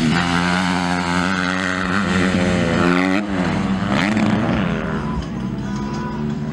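Motocross dirt bike engine revving hard, its pitch climbing and dropping with the throttle. It grows fainter after about five seconds.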